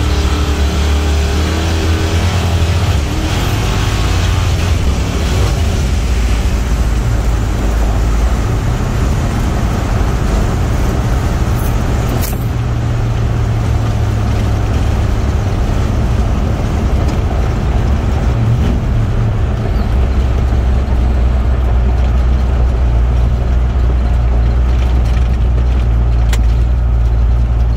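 A farm truck's engine heard from inside its cab during a drag-strip pass: a loud, steady engine drone under throttle for about the first twelve seconds, then easing off to a duller, lower drone. One sharp click about twelve seconds in.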